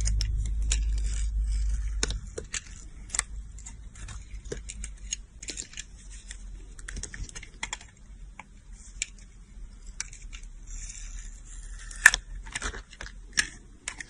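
A blade carving and shaving a bar of soap: a dense run of crisp, irregular clicks, crackles and short scrapes as the soap is cut, with one sharp, louder click near the end. A low rumble underlies the first two seconds.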